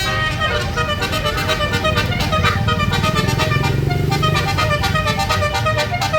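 Bus telolet horn of the multi-tone basuri type playing a fast melody of short notes that step between several pitches, a few notes a second, with the bus engine running low underneath.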